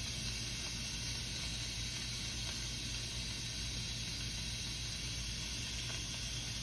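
Instant Pot electric pressure cooker letting off steam through its pressure-release valve under a draped towel: a steady hiss as the pressure built up during cooking is released.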